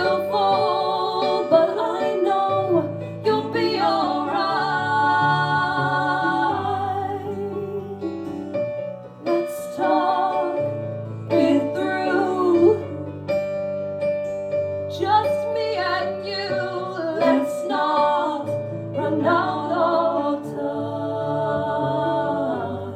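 Live acoustic folk song: female voices singing long held, wordless-sounding lines over strummed acoustic guitar, with steady low bass notes under the chords.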